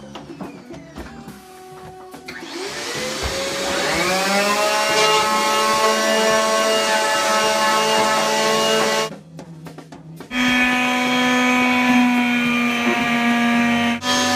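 Paint sprayer's turbine motor spinning up with a rising whine about two seconds in, then running steadily at a high pitch. It drops out for about a second near the nine-second mark and comes back.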